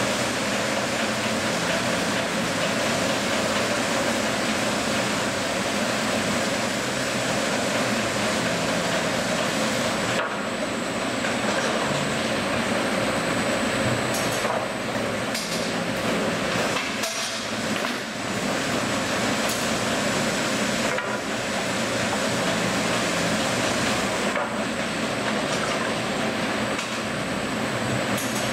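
Mereen-Johnson rip saw and its FastTrack infeed conveyor running steadily: a loud, continuous machine noise with a thin high whine, dipping briefly a few times.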